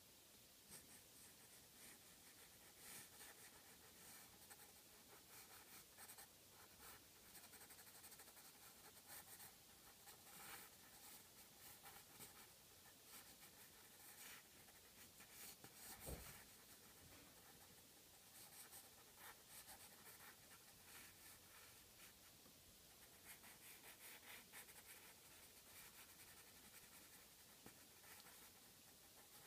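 Faint scratching of a graphite pencil on drawing paper in quick, irregular sketching strokes, with one soft thump about halfway through.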